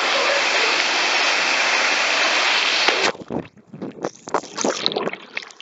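A steady rush of water that cuts off abruptly about three seconds in, followed by irregular splashing and sloshing in water.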